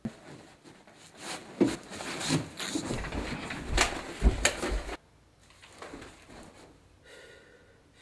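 A flurry of knocks, thumps and scuffling, stopping abruptly about five seconds in; faint, low sound follows.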